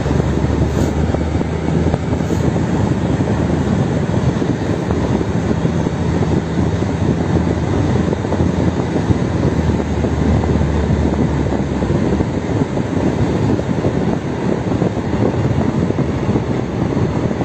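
Vehicle engine and tyre noise heard from inside the cabin while driving over a snow-covered road: a steady rumble with a low engine drone that eases off about two-thirds of the way through.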